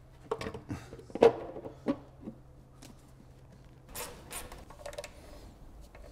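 A few clunks and knocks as a cast-aluminium valve cover is set down and seated on the cylinder head of a BMW M70 V12 engine, the loudest about a second in. Softer taps and handling noise follow.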